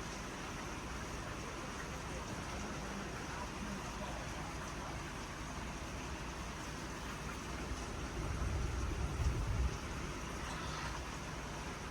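Steady hiss of heavy rain falling, with a low rumble swelling for a couple of seconds about eight seconds in.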